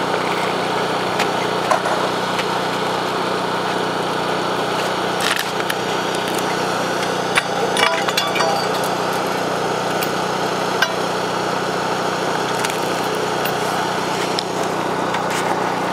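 An engine running steadily, with a few clinks and knocks about halfway through.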